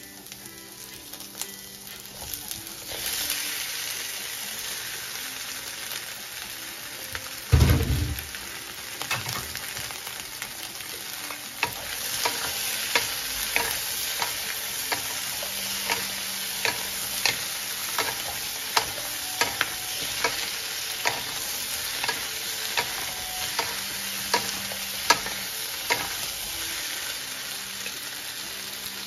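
Shrimp sizzling in a hot nonstick wok with onion and ginger, the hiss starting about three seconds in. A heavy thump comes near eight seconds in, then a wooden spatula knocks and scrapes against the pan in a steady rhythm as the shrimp are stir-fried.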